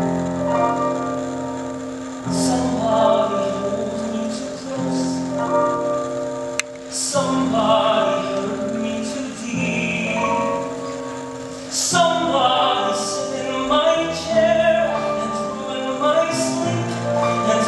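Male singer singing a show tune with vibrato, accompanied by grand piano and a small orchestra.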